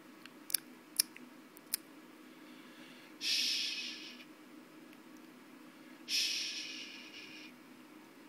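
A person softly shushing, a long hushing "shh" twice about three seconds apart, to lull a dog to sleep, with a few faint clicks in the first two seconds.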